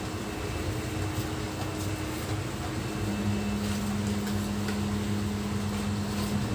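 Steady low mechanical hum, with a second steady tone joining about three seconds in and dropping out near the end.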